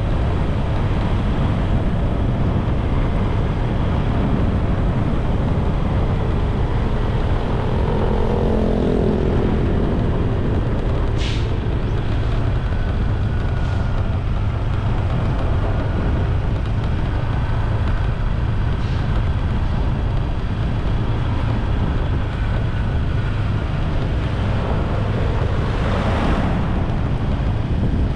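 Steady rush of wind and road noise on the microphone of a moving bike, with a brief rising hiss near the end.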